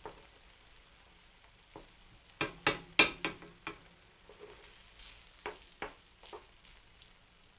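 Wooden spoon knocking and scraping in a non-stick frying pan as it spreads egg whites through diced potatoes and onions in tomato sauce, over a faint sizzle. A quick run of knocks comes about two and a half seconds in, and a few more near six seconds.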